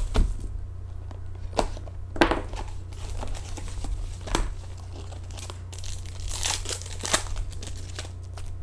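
Hockey card pack wrapper being torn open and crinkled, in irregular sharp crackles, over a steady low hum.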